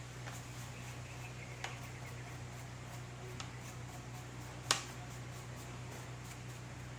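Three short, sharp clicks from a computer keyboard being handled during cleaning, the loudest about two thirds of the way through, over a steady low hum.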